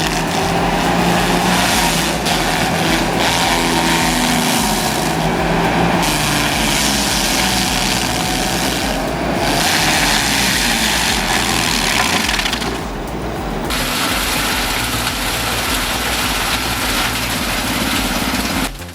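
Diesel engine of heavy forestry machinery running hard, its pitch shifting up and down over dense mechanical noise. The sound changes abruptly a few times.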